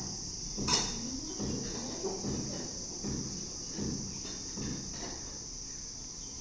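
Steady high-pitched drone of insects, with a short sharp click under a second in and faint low muffled sounds underneath.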